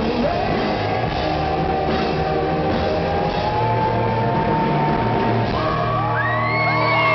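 Live rock band with guitar and drums while the singer holds one long, slightly rising note. Near the end the crowd breaks into whoops, whistles and cheering as the song finishes.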